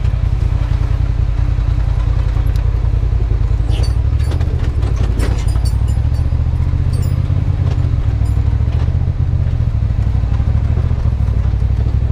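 Polaris RZR Turbo side-by-side's turbocharged twin-cylinder engine running steadily at low revs as it rolls down a steep, rough dirt trail, with scattered knocks and rattles of the chassis over rocks and ruts.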